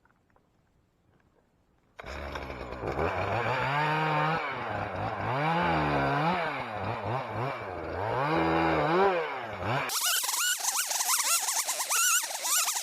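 Two-stroke chainsaw starting suddenly about two seconds in, then revving up and down over and over as it cuts. Near the end the sound changes abruptly to a higher, scratchier sound with fast wavering tones.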